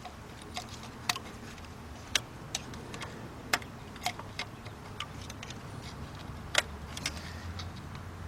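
Irregular sharp clicks and taps of a thin metal screwdriver tip picking and chipping at broken debris lodged around a spark plug down in the spark plug well, the loudest about six and a half seconds in.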